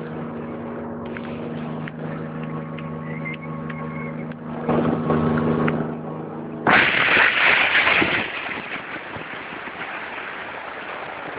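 Volvo Penta 225 hp engine of a Sunbird 220 Cuddy motorboat running steadily under way, a low, even hum. About two-thirds of the way through, a sudden, louder rush of wind and water takes over.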